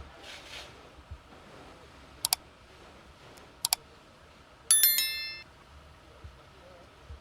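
Two quick double clicks, then a single bright metallic ring with several tones that fades away within about half a second.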